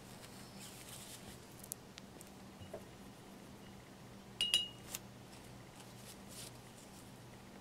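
Faint handling rustles, then a single sharp clink with a short ringing tone about halfway through, and a smaller click just after, as something hard is set down on the work table. A low steady hum runs underneath.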